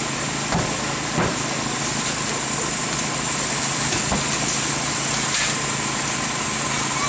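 Small engine of a hydraulic rescue-tool power unit running steadily, with a few brief knocks of metal on the car.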